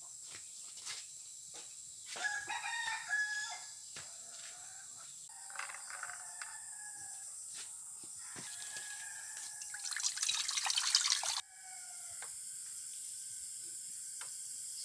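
Chickens clucking with a rooster crowing, as scattered short calls over a steady high hiss, with a few light knocks. About ten seconds in, a loud rushing noise lasts a second and a half and cuts off suddenly.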